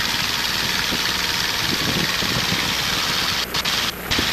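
Cessna 150's Continental O-200 four-cylinder engine at full takeoff power, a steady drone under a strong even hiss. The hiss briefly drops out twice near the end.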